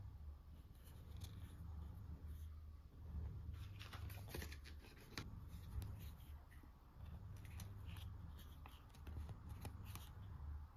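Faint handling noises, with small clicks and soft rustles coming in scattered clusters over a steady low hum.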